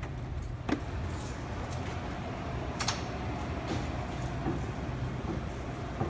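A door being pushed open, with a sharp click about a second in and another near three seconds, and keys jangling, over a steady low hum.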